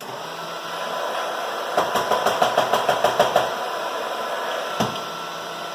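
Electric coffee grinder motor starting abruptly and running steadily through a single dose. About two seconds in, a quick run of about a dozen knocks, and one more knock near the end: the grinder being banged to shake loose grounds caught in its chute.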